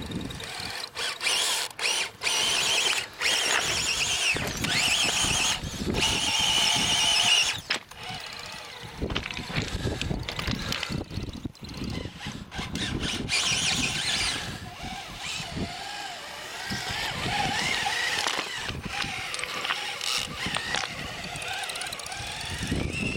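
Radio-controlled Losi Comp Crawler's electric motor and gearbox whining in stop-start spells as it crawls over rock. The pitch rises and falls with the throttle, with brief pauses between spells.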